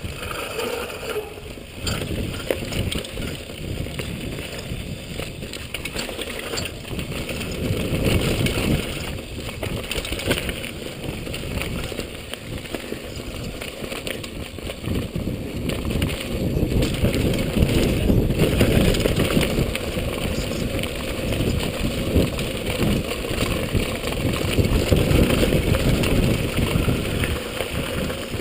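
Mountain bike descending a rough dirt trail at speed: tyre noise and the bike rattling and knocking over bumps and rocks, with wind on the microphone. It gets louder in stretches in the second half.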